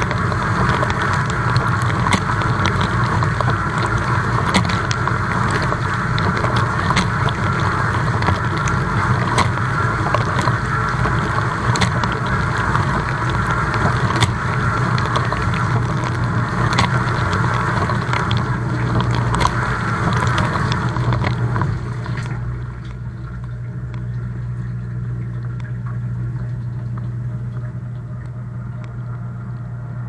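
Dishwasher wash cycle heard from inside the tub through a waterproof camera housing: water spraying and splashing over the dishes on top of the pump motor's steady hum, with scattered sharp ticks. About two-thirds of the way through the spraying stops and only the lower motor hum goes on, a little quieter.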